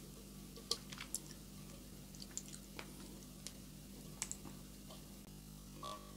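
Faint wet squishes and scattered light clicks as sardines in tomato sauce are shaken out of a tin can and picked out with fingers onto rice. A short clink comes near the end.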